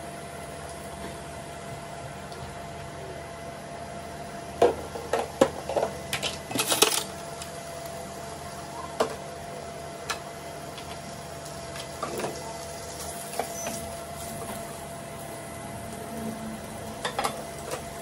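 Steady hum of an induction cooktop with a faint steady whine, broken by scattered clinks and knocks of a spoon and spatula against a nonstick wok and dishes. The knocks cluster about five to seven seconds in, with a few more later.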